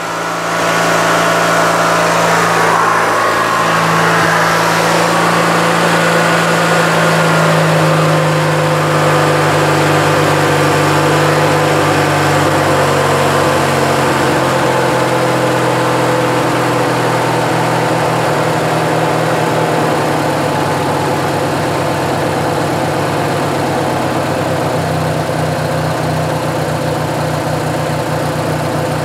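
Craftsman LT1000 lawn tractor's Briggs & Stratton opposed-twin engine running steadily on a freshly fitted four-screw Nikki carburetor after a light tune. It runs pretty well, its pitch shifting slightly over the first several seconds and then holding steady.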